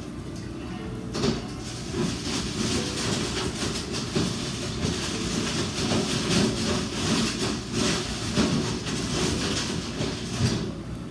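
A kitchen appliance running steadily, with a low rumble and a patter of rattling clicks over it.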